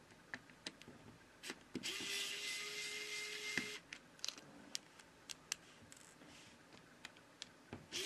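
Xiaomi electric precision screwdriver whirring at a steady pitch for about two seconds as it backs out a small screw from a phone's inner back cover. Light clicks and taps of the bit and screws come before and after it, and the motor starts again right at the end.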